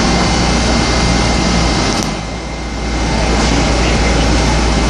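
New York City subway 7 train running on the elevated steel track: a loud, steady rumble of wheels and motors on rail, with a thin steady whine. The noise dips briefly about two seconds in and then comes back up.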